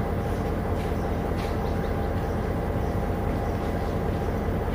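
Diesel passenger train's engine running with a steady, even drone and a few faint ticks.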